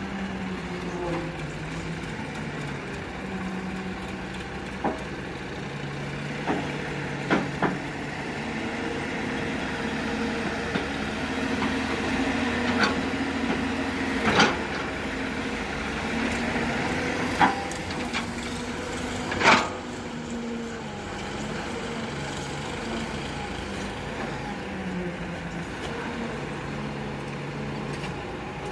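Hyundai Robex 210-7 excavator's diesel engine running under working load, its note rising and falling as the hydraulics swing and dig. A series of sharp knocks comes through the middle, two of them loudest.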